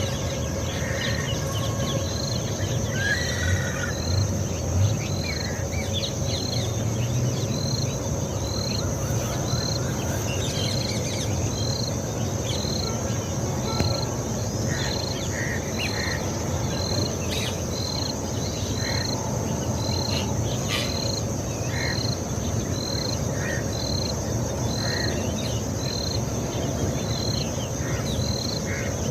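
Insect chorus: a short high chirp repeating about every two-thirds of a second over a steady high-pitched whine, with scattered short bird calls and a low background rumble.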